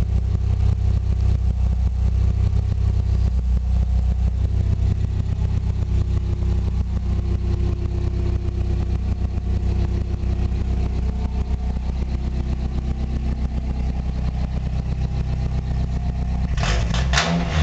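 The Mazda 323 GTR's turbocharged 1.8-litre four-cylinder engine running at a steady idle. Near the end a rougher, hissier exhaust sound suddenly cuts in, heard close at the rear of the car.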